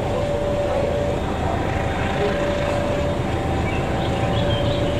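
Diesel locomotive of an approaching passenger train running with a steady low rumble. Over it, two steady notes, one lower and one higher, take turns about once a second.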